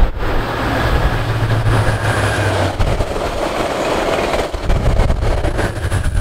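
VIA Rail passenger train passing at speed behind an F40PH-2 diesel locomotive. The locomotive's engine drone is strongest in the first couple of seconds, then gives way to the rush of the coaches going by, with wheel clicks and a faint high whine near the end.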